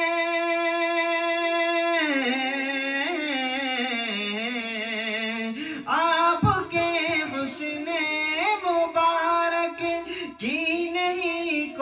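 A naat sung in Urdu. The singer holds one long steady note for about two seconds, then draws the line out in wavering ornamented runs. After a brief break about six seconds in, the singing picks up again with more ornamented phrases.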